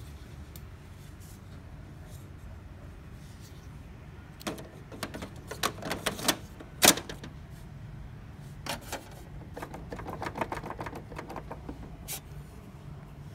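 Plastic clicks and knocks of an HP 32A drum unit being slid and seated into an HP LaserJet M203dn's cartridge bay, over a steady low hum. A cluster of clicks starts about four seconds in, with one sharp knock near seven seconds, and a quicker run of small clicks follows from about nine to eleven seconds.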